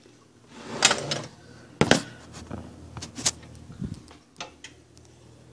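Scattered knocks and clicks of a phone being handled and swung around, the sharpest about a second in and again near two seconds.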